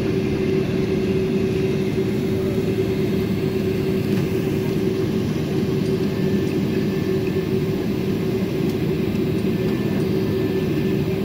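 Cabin noise of a Boeing 767-400ER taxiing at idle thrust, heard from a seat over the wing: a steady low rumble with one constant hum-like tone.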